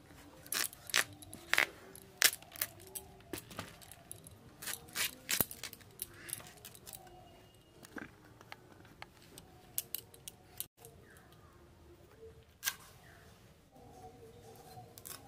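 Vegetables being cut on a boti, the upright Bengali kitchen blade: cauliflower florets are snapped and sliced off the head, then carrot. The sound is a run of crisp snaps and cuts, quick and dense for the first several seconds, then sparser, with one sharp louder snap near the end.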